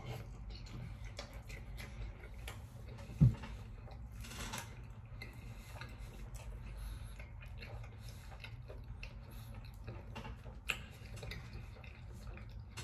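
A man chewing a mouthful of burrito close to the microphone, with small wet mouth clicks throughout. A single dull thump comes about three seconds in.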